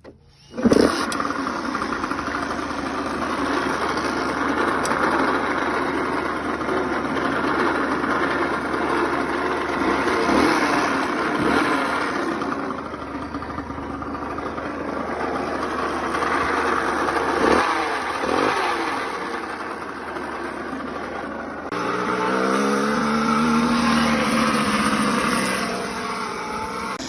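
Minarelli AM6 50cc two-stroke engine of a Beta motorcycle catching about a second in and running loudly with a big strange noise. It is revved up and back down near the end. The owner cannot tell whether the noise comes from the gearbox, a worn crankshaft or the bearings.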